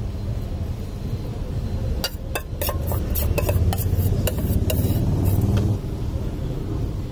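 Metal spoon clinking and scraping as it spreads a macaroni topping over a pizza base: a quick run of sharp clinks from about two seconds in until nearly six seconds. Under it is a steady low background rumble.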